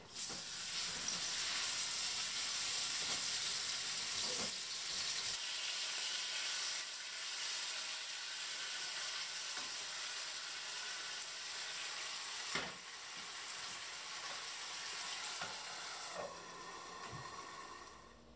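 Food dropped into a hot frying pan, starting a loud sizzle at once that runs on steadily while the pan is shaken and tossed over the gas flame. A few light knocks of the pan come through, the clearest past the middle, and the sizzle eases off near the end.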